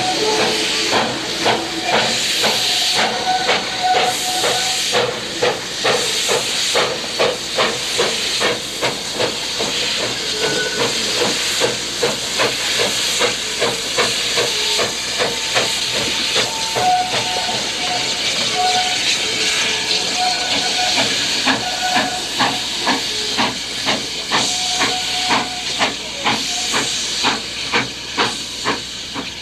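Steam locomotive Reno, a 4-4-0, under way: a steady rhythm of exhaust chuffs over continuous steam hiss.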